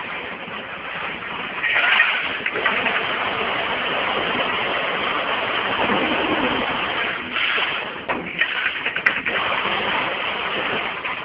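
Automatic screw counting and packaging machine running: a dense, loud metallic rattle of screws moving through its stainless-steel chutes. Louder surges come about two seconds in and again near seven seconds, with a few sharp clicks around eight to nine seconds.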